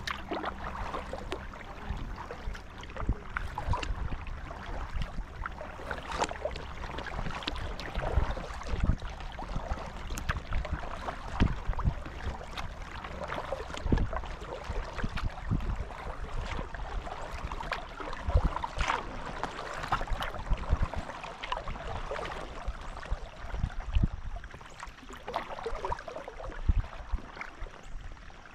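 Kayak paddle strokes dipping and splashing in creek water every second or two, with water trickling along the hull of an Advanced Elements inflatable kayak.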